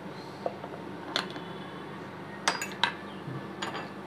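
Scattered light clinks of a metal spoon against kitchen dishes and containers, one ringing briefly, over a faint steady hum.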